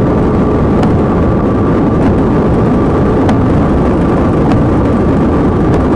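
Steady, loud road, wind and engine noise inside a police car running at about 130 mph. A steady high whine runs through it, and there are a few faint ticks.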